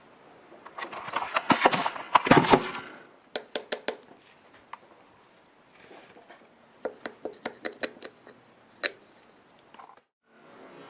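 Scratching and clicking on paper: a dense, scratchy flurry of loud clicks for about two seconds, then two runs of evenly spaced sharp clicks, about six a second, and one last click. The sound cuts out to dead silence near the end.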